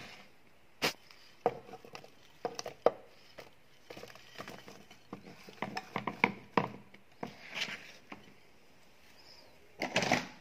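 Courgette slices being dropped and laid by hand into an aluminium cooking pot: a string of irregular light taps and knocks, busiest in the middle, with a few sharper clicks.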